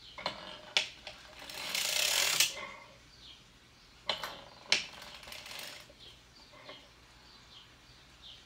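Hand-cranked circular sock machine knitting: the needles clatter through the cams in two short runs with sharp metallic clicks. The machine then falls quiet apart from faint high chirps.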